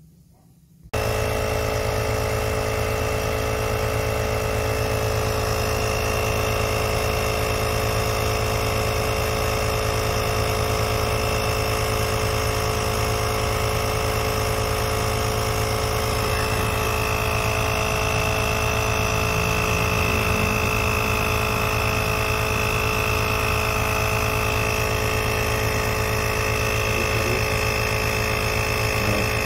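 AIKEZI XMDY-3 120 W portable electric tire inflator's compressor running steadily while pumping up a car tire, starting abruptly about a second in.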